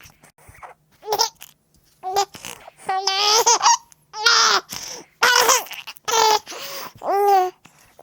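Baby laughing in a run of short, high-pitched bursts with babbling between them, faint at first and loud from about two seconds in.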